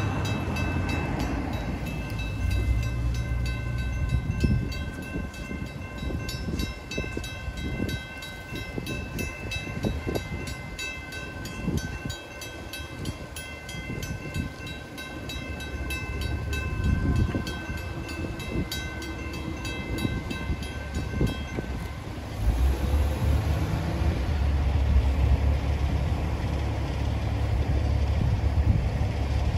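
Railroad crossing bell ringing with rapid, evenly repeated strikes, then stopping about 22 seconds in. This is an early, false activation of the crossing that the uploader calls a malfunction: it goes off while the train is still about 2 miles away, and the gates then go back up. Road traffic rumbles past at the start and again after the bell stops.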